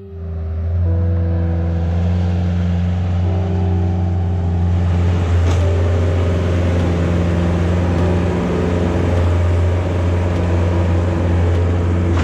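A vehicle engine running steadily with a deep, even drone.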